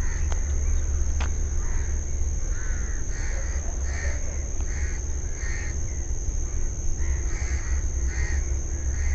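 Crows cawing repeatedly, about one call a second, over a steady low rumble and a steady high-pitched whine.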